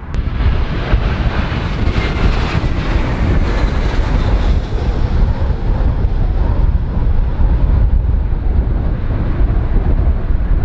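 Aegean Airbus A321 jet airliner on final approach, its engine noise swelling to a peak a few seconds in and then easing, under heavy gale wind buffeting the microphone with a constant low rumble.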